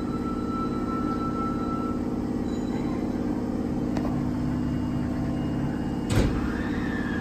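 Steady hum of an Osaka Metro 22 series subway car's onboard equipment heard inside the cabin while the train stands at the platform, with a brief knock about six seconds in.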